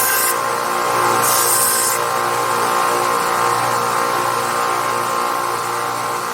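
Harbor Freight 4x6 metal-cutting bandsaw running steadily with a constant hum, with two brief high hissing bursts in the first two seconds.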